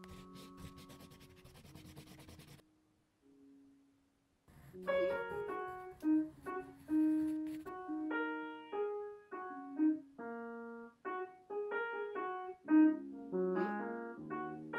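Piano music: a quick, playful run of single notes begins about four and a half seconds in. Before it, a pencil scratches across sketchpad paper for about two and a half seconds under soft held notes.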